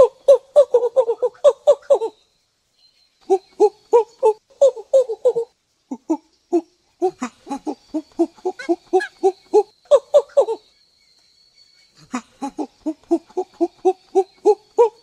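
A monkey calling in rapid runs of short pitched calls, about four or five a second, in three bouts with pauses of a second or so near the start, the middle and near the end. A faint steady high tone sounds behind some of the calling.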